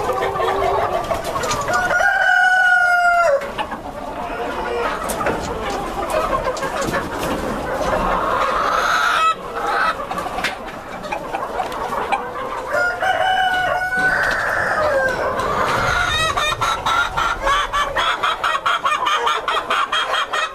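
Flock of Silver Spangled Appenzeller Spitzhauben chickens clucking and calling, with a rooster crowing twice, about two seconds in and again past the middle.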